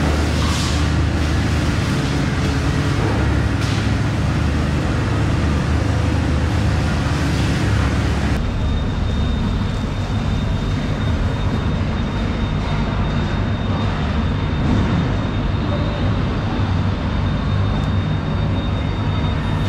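Steady low mechanical drone under a constant rushing noise. About eight seconds in the sound changes abruptly: the hiss thins out and a faint high steady whine comes in.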